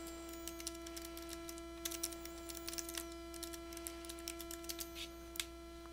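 Faint computer keyboard keystrokes, a quick irregular run of clicks as a search term is typed, over a steady electrical hum.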